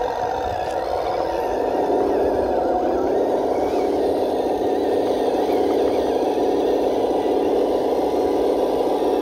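Cross RC KrAZ 260 six-wheel RC truck's drivetrain whirring as it crawls through muddy water, settling into a steady whine about a second and a half in.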